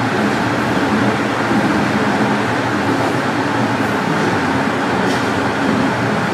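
Cabin noise inside a Toronto Rocket subway car running through a tunnel: a steady, loud rumble and rush from the wheels and rails.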